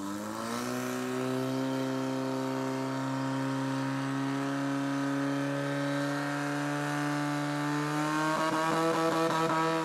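Portable fire pump's engine run up to full revs, its pitch climbing over the first second and then holding steady at high speed while it pumps water through the hoses. Near the end the pitch wavers.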